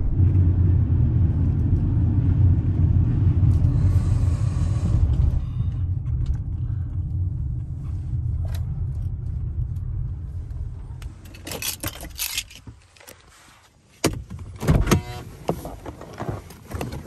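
Steady low rumble of a minivan's road and engine noise heard inside the cabin on a wet road, with a short hiss of tyres through water about four seconds in; the rumble fades as the van slows and stops. Near the end come sharp clicks and knocks as the driver's door is opened.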